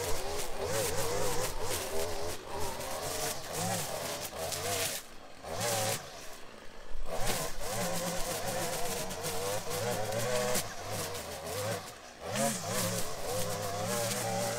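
Gas-powered string trimmer running at cutting speed through tall grass and weeds, its engine pitch wavering as the line bogs and frees. The throttle is let off and the engine drops toward idle about five seconds in and again briefly around twelve seconds, then picks back up.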